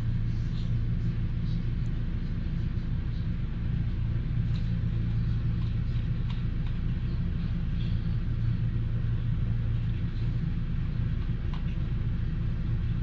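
Steady low hum from a machine or the room, with a few faint light taps.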